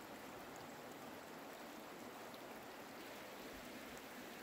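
Shallow creek running over rocks and stones: a steady, even rush of water.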